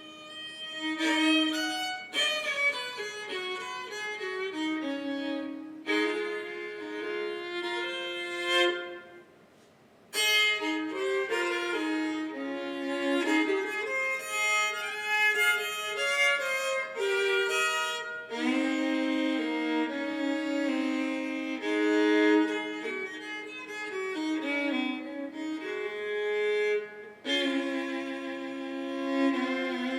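Solo fiddle in sawmill tuning, its lower two strings raised a whole step so the open strings ring together, bowing a fiddle tune with double stops and drone notes. The playing breaks off briefly about ten seconds in and then resumes.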